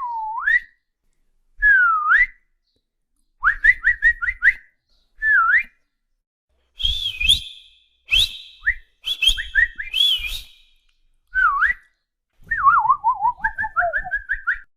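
A person whistling in short separate phrases, the kind of whistle used to catch a dog's attention: swooping down-and-up glides, quick runs of rising chirps, and near the end a falling warble followed by rapid repeated high notes.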